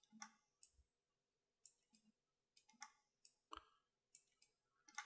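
Faint, sparse clicks of a computer mouse, about a dozen at irregular intervals, over otherwise near-silent room tone.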